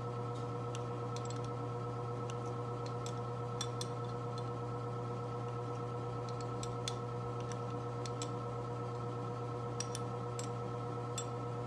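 Small, irregular metallic clicks from an adjustable pushrod on a Harley-Davidson being turned one hex face at a time with a wrench, over the steady hum of the shop furnace running.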